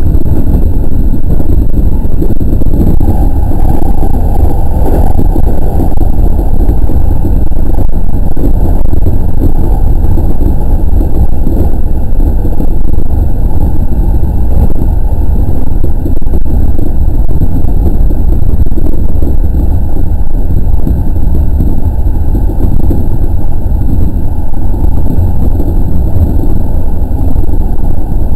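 207 series electric commuter train running at speed, heard from inside the front cab as a steady, loud low rumble of wheels on rail.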